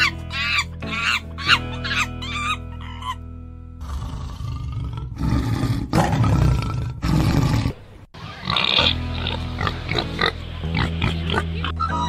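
Background music with animal calls over it: a run of short, high, arching squeaks from a macaque in the first three seconds. Then comes a loud, rough, low growling from a tiger between about four and eight seconds in, cut off abruptly.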